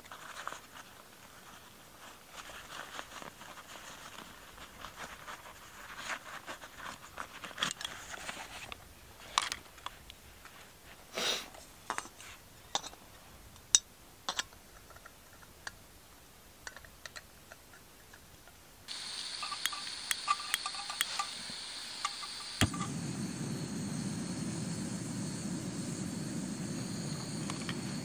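Small metal clinks and knocks as a camping pot and its lid are handled. About two-thirds of the way through, a gas canister stove is turned on with a sudden steady hiss. A few seconds later it is lit with a sharp click and then burns with a steady low rush of flame.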